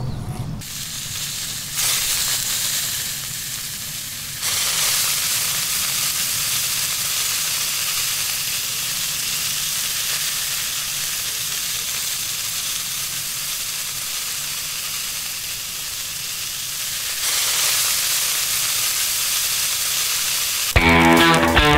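Baked beans in sauce sizzling on hot grill grates over open flame: a steady hiss that gets louder in a few steps. Electric guitar music comes in near the end.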